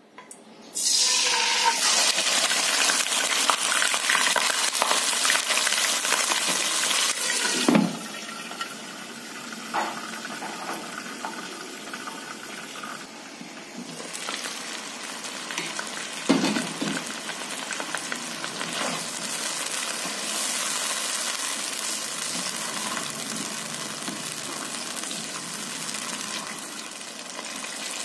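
Chunks of raw meat dropped into hot oil in a nonstick wok, setting off a loud sizzle about a second in that carries on as they fry. Two knocks come about eight and sixteen seconds in, and after the first the sizzling is quieter.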